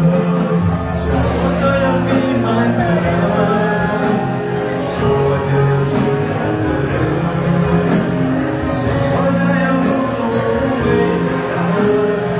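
A man singing a pop song into a handheld microphone over a backing track with a steady drum beat, amplified through the hall's loudspeakers.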